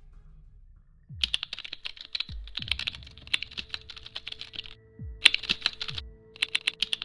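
Typing sound effect: rapid bursts of key clicks starting about a second in, pausing briefly twice, with a low thump at the start of several bursts, as an on-screen title is typed out letter by letter.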